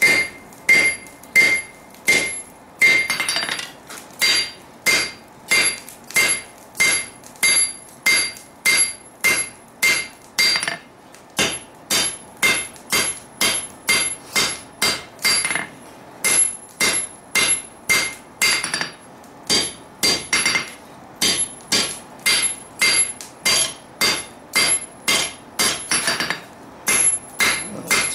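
Hand hammer striking a red-hot steel sword blade on an anvil in a steady run of ringing blows, about two to three a second, with a few brief pauses. The blows are thinning the claymore blade.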